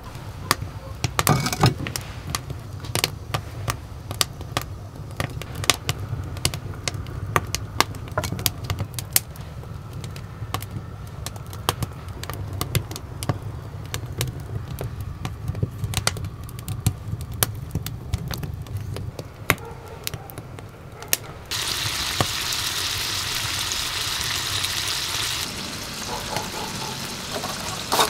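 A run of irregular sharp clicks and taps, then about three-quarters of the way through a sudden loud sizzle as food goes into a hot frying pan, which keeps frying to the end.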